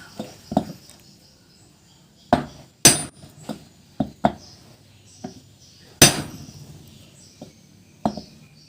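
Hammer blows on metal: about a dozen irregular strikes, a few hard ringing ones and lighter taps between them, the loudest about three and six seconds in.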